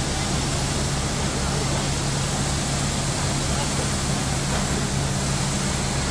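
Steady jet-aircraft noise: a constant rushing roar with a low steady hum under it.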